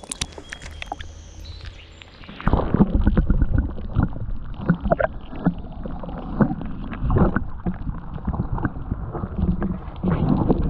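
Muffled water sloshing and gurgling as a northern pike is let go back into the creek by hand, starting suddenly about two and a half seconds in and running on in irregular surges.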